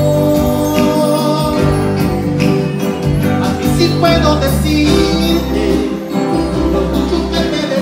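Live band playing an instrumental break of a romantic ballad: a guitar melody over sustained bass notes, with light jingling percussion.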